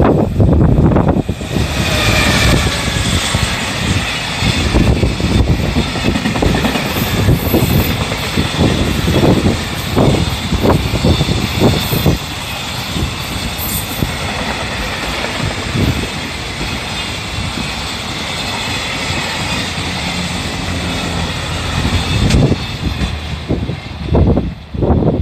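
Freight train hauled by an EF210 electric locomotive passing close by: a steady rumble of wagon wheels with irregular clatter over the rail joints. It comes on loud about a second and a half in and dies away near the end.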